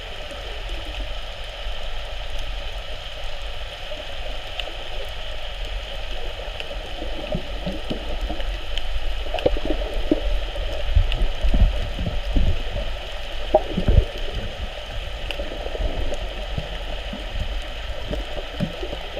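Water moving around a submerged camera: a steady underwater hiss with irregular gurgles and low thumps, busier and louder in the middle.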